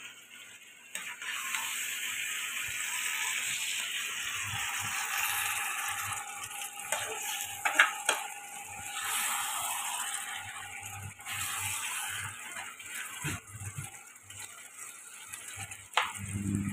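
Thick chicken curry sizzling and bubbling in a frying pan, with a metal ladle clinking against the pan twice about eight seconds in.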